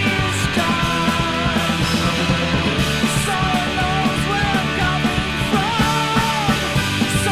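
Punk rock music: a full band with drums and guitars, playing at a steady, loud level.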